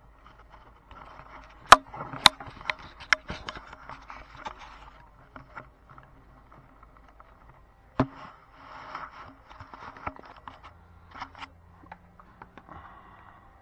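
Handling noises from laptop reassembly: a few sharp clicks, the loudest about two seconds in and again near eight seconds, with scraping and rustling of parts between them.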